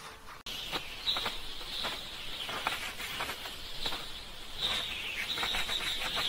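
Insects chirring steadily, a high buzz with scattered faint ticks, starting about half a second in.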